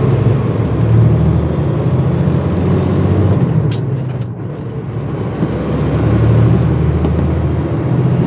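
Engine and road noise of a work vehicle, heard from inside the cab while driving: a steady low rumble that eases off around four seconds in and builds again. There is one brief sharp sound a little before four seconds in.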